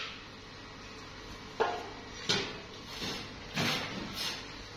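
Metal pieces being handled in a workshop: a run of short knocks and scrapes, about five of them, starting about a second and a half in and coming roughly every half second.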